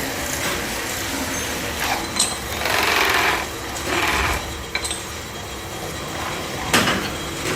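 Workshop machinery running with a steady clatter, two brief rasping hisses in the middle and a sharp knock near the end.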